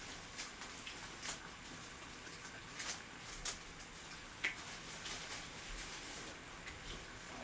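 Faint, scattered clicks and light taps, about five in all and spread over the first half, over a quiet room hiss: small handling noises.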